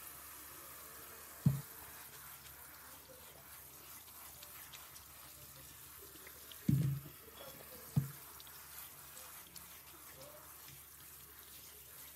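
A thin stream of tap water running into a stainless steel colander of live silkworms in a sink as they are rinsed and stirred by hand. Three dull knocks sound over it, one about a second and a half in and two close together a little past the middle, as the colander is handled.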